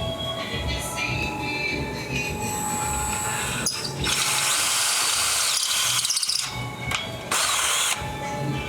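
Power drill boring into an aluminum housing, running in two bursts, a longer one about four seconds in and a short one near the end: it is enlarging a stripped plug hole to take a helicoil insert.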